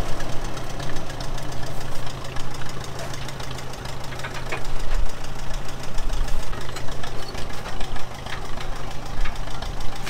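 Ferguson TVO 20 tractor's four-cylinder engine idling with an even, rapid pulse, running on kerosene.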